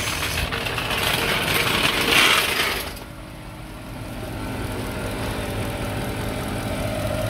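A loud rushing hiss for about three seconds, then the Mercedes ML63 AMG's 6.2-litre V8 idling steadily with the hood open: nice and quiet, ticking like a typewriter.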